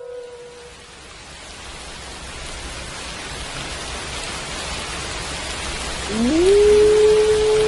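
Steady rain hiss, with the tail of a howl fading out in the first second. About six seconds in, a wolf howl rises in pitch and then holds one long steady note.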